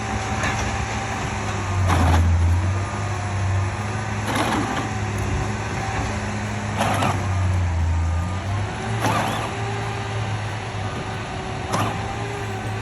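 Battery-powered Peg Perego John Deere Gator ride-on toy's electric drive motors and gearboxes running steadily, with a brief louder clatter about every two and a half seconds.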